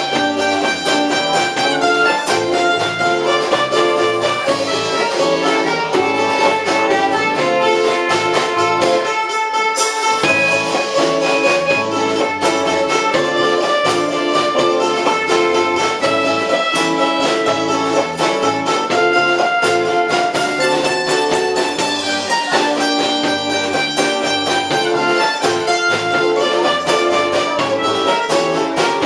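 Live band playing an instrumental passage on acoustic and electric guitars, bass guitar and drums, with a bowed or plucked lead string part. The bass and drums drop out briefly about a third of the way in, then come back.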